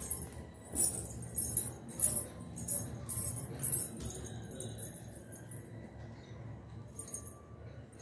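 Silver anklets with small bells jingling as the wearer steps barefoot, a short jingle about every half second, thinning out after about five seconds, with one more brief jingle near the end.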